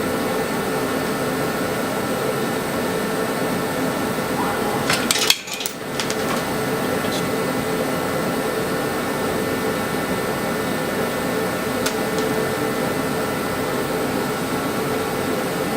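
Steady mechanical drone with a few held tones, like a running fan or blower motor. About five seconds in it is broken by a short burst of sharp clicks and a brief drop, then carries on unchanged.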